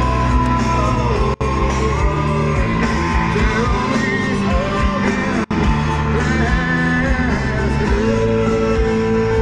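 Rock song with a singing voice and guitar playing on the car radio, with two very brief dropouts.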